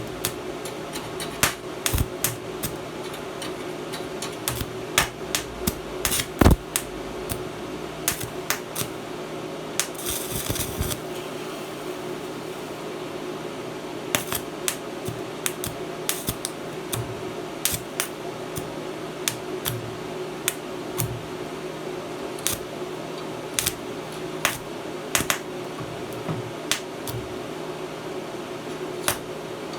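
Electric arc welding: the arc crackling and popping irregularly, over a steady hum from the inverter welding machine.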